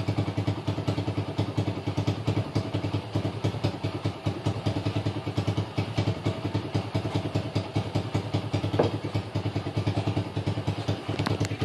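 Apollo ADR 125 dirt bike's 125 cc single-cylinder four-stroke engine idling steadily with an even run of rapid exhaust pulses, warmed up and running smoothly.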